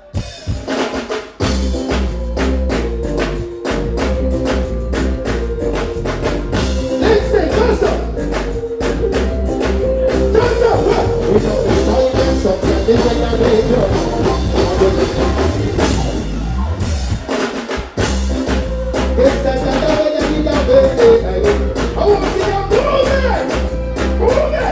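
Live reggae band music: drum kit, heavy bass and keyboards kick in about a second in and play on with a steady beat.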